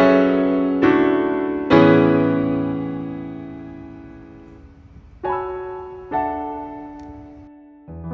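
Background music: slow piano chords, each struck and left to ring and fade, three close together at the start and more a few seconds later.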